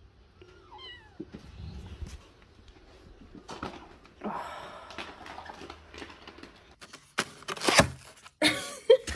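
A cat meowing, a short call falling in pitch about a second in, followed by scattered rustling and, near the end, a few louder bursts of noise.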